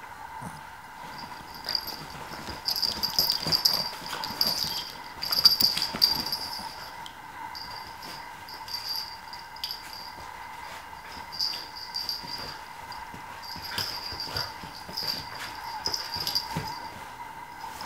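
Miniature Australian Shepherd play-wrestling with a cat on a bed: scuffling and rustling of the bedding with the dog's play noises, loudest in the first few seconds.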